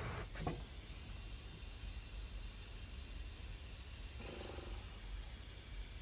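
Steady chirring of insects in the background, with two quick knocks about half a second in as a loose wooden brace board is set against the plank door, and a brief low tone around four seconds in.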